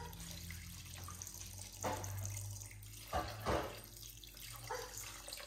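Water pouring steadily from a kettle into a cast iron pot, splashing over raw chicken drumsticks.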